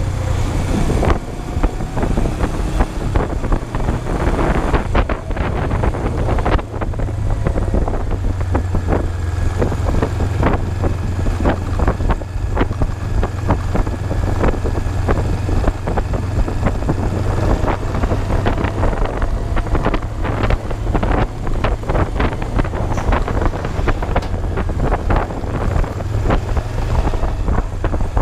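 Kawasaki GPz250 Belt Drive's parallel-twin engine running steadily as the motorcycle rides along the road, with wind buffeting the microphone throughout.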